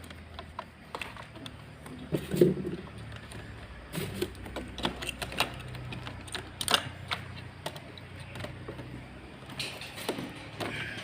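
Irregular clicks and clatter from the plastic parts of a Huina 1569 RC toy bulldozer, with a faint low steady hum under them.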